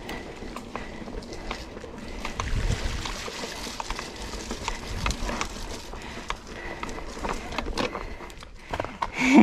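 Mountain bike riding over a rough dirt trail: steady tyre noise with frequent clicks and rattles from the bike.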